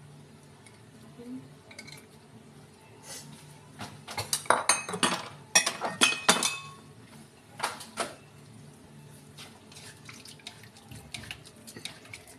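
Kitchen clatter of metal utensils and cookware: a burst of loud clanks and rattles about four to six and a half seconds in, two more clanks about a second later, then lighter clinks and scrapes of a spatula in a steel wok near the end.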